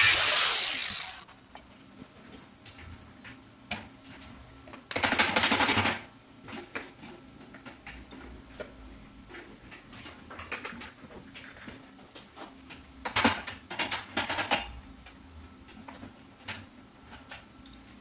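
An angle grinder on a steel concrete-mixer drum shuts off and spins down over the first second. A loud burst of about a second follows near five seconds in. After that come scattered sharp metallic clicks and knocks, busiest a little after halfway, as a tool works the mixer's wheel hub and axle.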